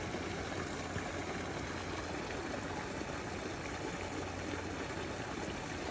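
Steady rushing hiss of running water, with no distinct events.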